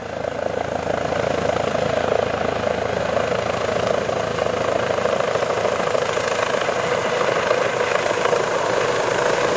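Medical helicopter approaching to land, its rotor and turbine noise loud and steady.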